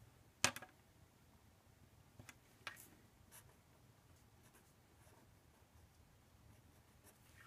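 Marker pen drawing on paper: faint, short scratching strokes. A sharp click about half a second in is the loudest sound.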